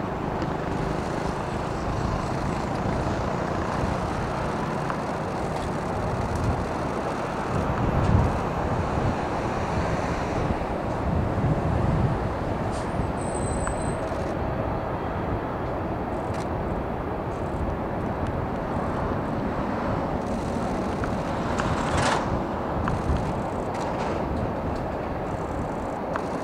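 Boeing 767 airliner taxiing at low power, its jet engines heard from a distance as a steady low rumble that swells briefly about eight and twelve seconds in.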